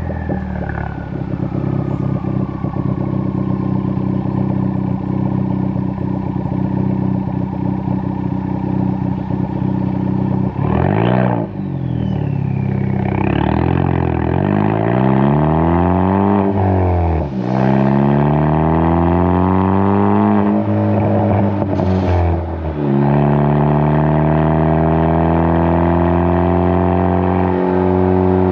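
Ford Focus ST's turbocharged 2.0-litre four-cylinder heard at the tailpipes through a Hooker Blackheart 3-inch stainless catback exhaust while driving. It runs steadily at cruise, then accelerates hard, its pitch climbing and dropping sharply at three gear changes before climbing steadily again.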